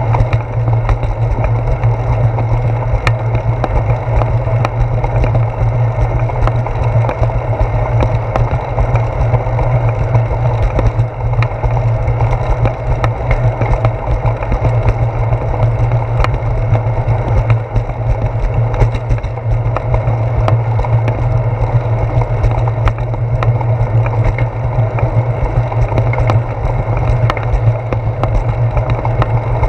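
Bicycle rolling along a concrete sidewalk, heard through a handlebar-mounted camera: a loud, steady rumble of tyre and frame vibration with many small clicks and rattles.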